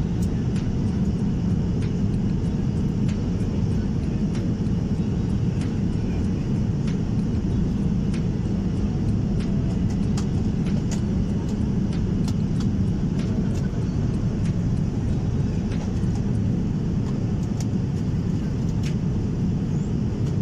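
Steady cabin noise of an Airbus airliner in flight: a constant low rumble of engines and airflow, with a few faint clicks over it.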